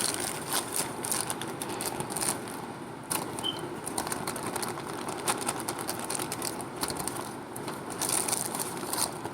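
Irregular crinkling and small clicks of a marshmallow bag being handled while marshmallows are dropped into a cup.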